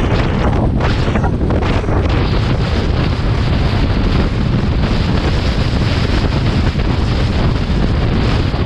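Loud, steady wind buffeting on the microphone of a camera riding on a moving motorcycle along a gravel track, with a few short crackles in the first couple of seconds.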